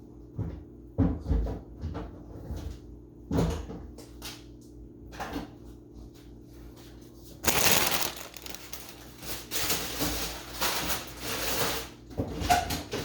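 Food being handled in a refrigerator: a few knocks as items and drawers are moved and set down, then several seconds of rustling and crinkling from packaging, then a couple more knocks near the end.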